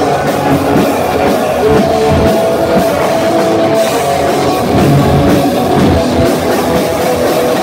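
Live heavy metal band playing loudly: distorted electric guitars over a drum kit.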